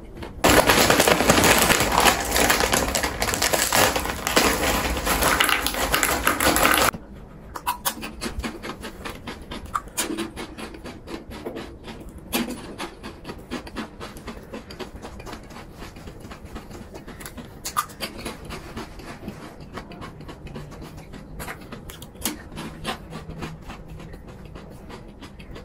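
Close-miked eating of fried food. For the first six seconds or so there is a loud, dense crackling crunch that cuts off suddenly. After that come quieter, scattered crunches, smacks and clicks of chewing.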